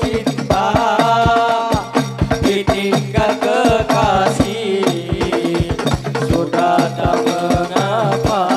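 Hadrah music: hand-struck frame drums (rebana) keep up a fast, steady beat under a male voice singing held, ornamented notes.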